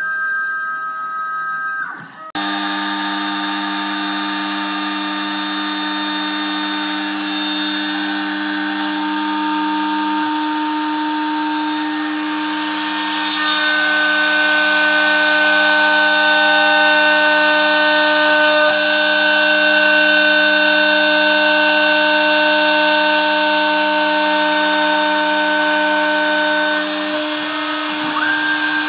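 DIY CNC router spindle, a Turnigy brushless RC helicopter motor at about 12,000 rpm, running steadily with a whine while its end mill cuts a pocket in aluminium. The spindle and cutting sound starts about two seconds in.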